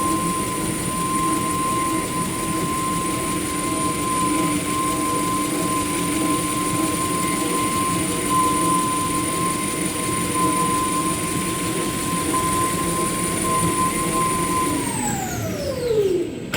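Maxi roll paper production line machinery running with a steady high whine over a mechanical hum. Near the end it winds down, its whine falling steadily in pitch as the drives slow to a stop.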